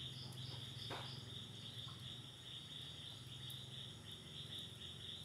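Crickets chirping in a steady, fast-pulsing high trill, over a faint low steady hum, with a single brief click about a second in.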